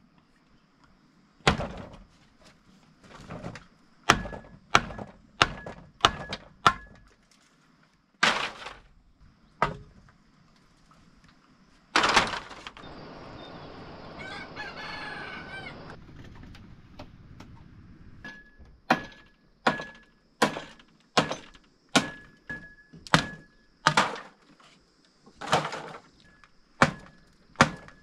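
Sharp blows struck one after another, loosely about one a second, such as chopping wood. About twelve seconds in, the blows stop for a few seconds while a rooster crows once.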